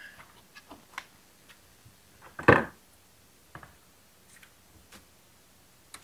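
Handling noises from hand work on a string trimmer's fuel line and plastic fuel tank: scattered light clicks and taps as the new fuel hose is pulled up through the tank. There is one louder bump about two and a half seconds in and a sharp click near the end, as pliers take hold of the hose.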